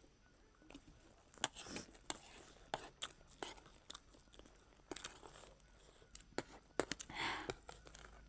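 Chatpat, a spicy puffed-rice snack, being eaten: a run of irregular crunches and sharp clicks as it is chewed, with a short breathy sound about seven seconds in.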